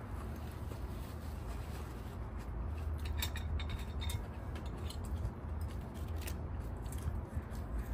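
Eating sounds: scattered crisp clicks and crunches of chewing and utensils, busiest about three to four seconds in, over a steady low hum.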